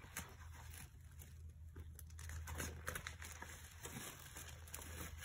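Faint rustling and light taps of paper sheets being handled and pulled out of a pack, over a low steady hum.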